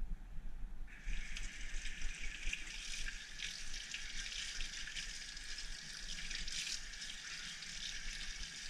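Water running steadily from a tap, starting about a second in.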